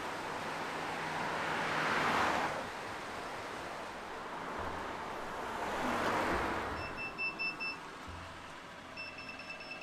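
Traffic passing on a road bridge over a river: a steady rushing noise that swells twice as vehicles go by. In the last few seconds, two short runs of rapid high electronic beeping from a motorhome aire's payment terminal.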